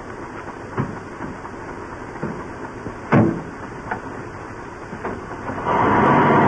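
Old open touring car's engine starting up about three-quarters of the way through and running loudly. Before that there is only the hiss of an old film soundtrack and a few short knocks, the loudest about halfway through.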